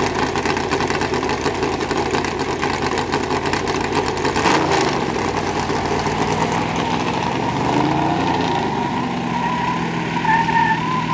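Vehicle engine running steadily as a pickup push truck starts pushing a streamliner race car. A short loud burst of noise comes about four and a half seconds in, and the engine pitch rises near eight seconds in as they get moving.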